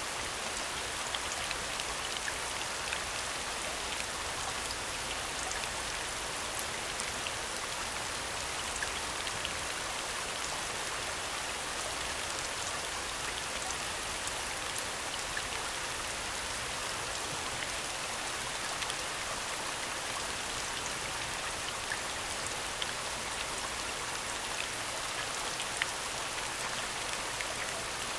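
Recorded rain soundscape: a steady hiss of falling rain with scattered single drops ticking.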